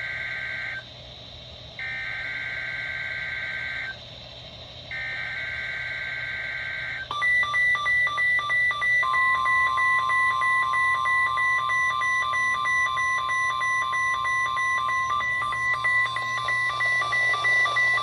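EAS data header sent over NOAA Weather Radio: three bursts of two-pitch warbling data tones. About seven seconds in, the weather radio receivers set off their alerts with rapid, loud pulsing beeps, joined by the steady warning alarm tone, which together signal a tornado warning drill.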